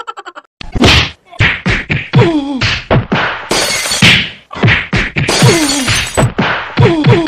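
A rapid string of cartoon slapstick hit sound effects: a dozen or so whacks, many with a short falling tone after them, and two longer crashes in the middle.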